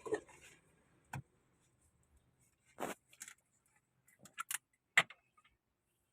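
Hand tools and metal parts clinking and knocking against each other, a few separate strikes with quiet gaps between, the sharpest about five seconds in.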